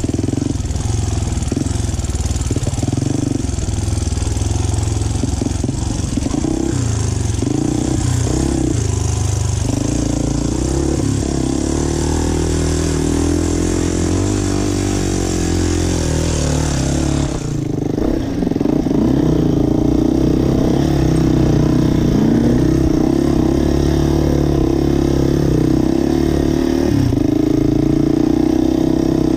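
Dirt bike engine heard from on board, revving up and down with the throttle while riding a rough dirt trail. The engine sound dips briefly a little past halfway as the throttle is cut, then picks up again.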